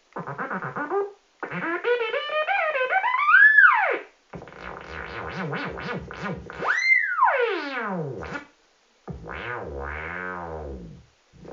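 Electronic sound generator making a string of synthesizer-like tones that warble and glide up and down in pitch, broken by short gaps. One tone sweeps steeply upward about three seconds in, and another falls steeply about seven seconds in.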